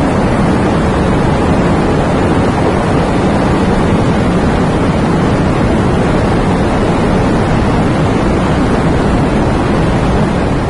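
Rain falling, a steady dense hiss that begins to fade out right at the end.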